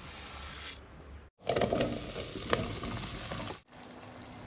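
Food sizzling in hot pans across three short cooking shots with abrupt cuts between them. First, egg batter is poured onto a hot cast iron tawa. Next comes a louder stretch of frying and stirring with a sharp clink of metal near the middle, and then a quieter, steady sizzle of minced meat in a stainless steel kadai.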